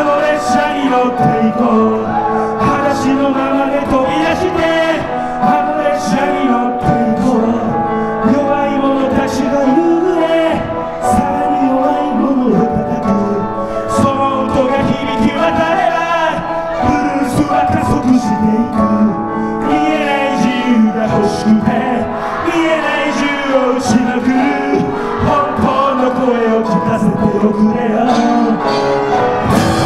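Live rock band playing: a man sings into a microphone over electric guitars, keyboard and drums.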